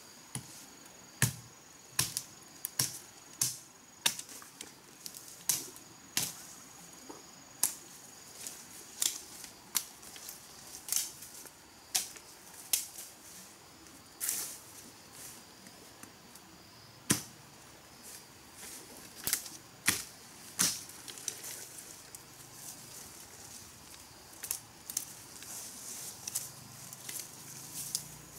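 A knife blade hacking at thin saplings and branches: sharp, irregular chopping strokes, about two dozen, roughly one a second.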